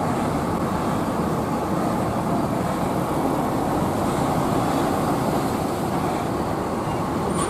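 Mercedes-Benz OH 1626 bus's rear-mounted diesel engine running steadily as the bus drives slowly past.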